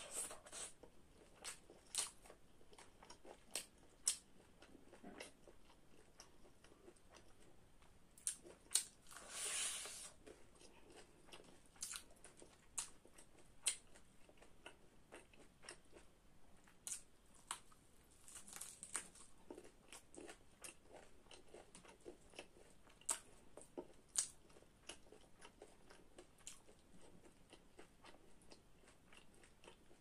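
Close-up eating of a fried chicken drumstick: bites into the coated chicken and chewing, with many short, sharp crunches and clicks scattered through.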